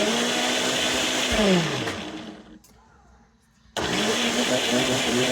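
Countertop blender pulsing on frozen mango chunks, ice and honey: the motor switches on with a quick rise in pitch, runs steadily, winds down and stops about two seconds in, then starts again near the end of the first four seconds and keeps running.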